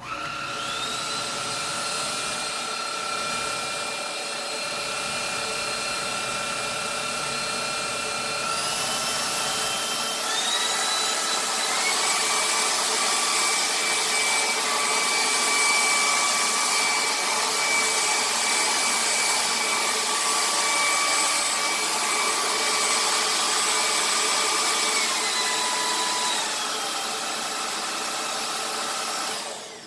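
Cordless stick vacuum cleaner running: its motor whine spins up at the start, steps up in pitch twice as the motor speeds up, steps back down near the end and cuts off.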